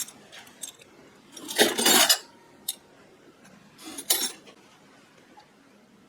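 Metal flatware clinking and jangling as spoons and forks are handled and shifted about in a box: a few light clinks, a longer jangle about a second and a half in, and a shorter one around four seconds.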